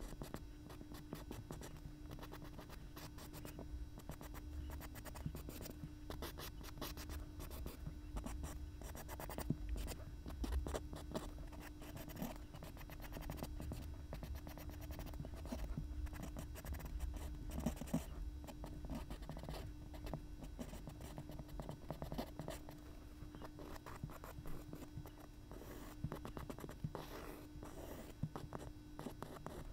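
A paper blending stump, and later a white watercolour pencil, scratching across a black-painted MDF board in many quick, short sketching strokes.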